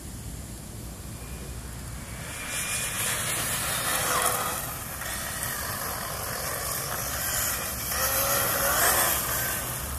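1/8-scale electric RC buggy (Associated RC8.2e with a Castle Neu 2200kv brushless motor on 6S) driving close by on asphalt. Its motor whine rises and falls over tyre noise, loudest about four seconds in and again near the end.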